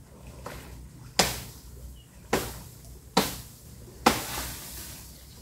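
Four chopping strikes about a second apart, a blade hacking through thorny brush; the last strike is followed by a longer rustle.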